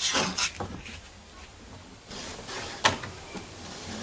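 Handling noises from marking out sheet metal: a brief rustle at the start, a scraping stretch about two seconds in, and one sharp click of a tool against the metal just before the three-second mark.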